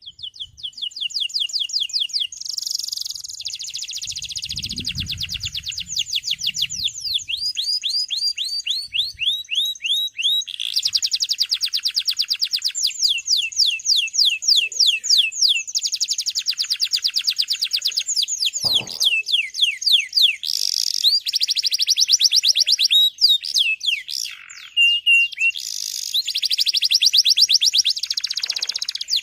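Male domestic canary singing long, rapid trills: fast runs of repeated chirping notes in several phrases, broken by brief pauses. A low rumble comes about five seconds in, and a single sharp click near the middle.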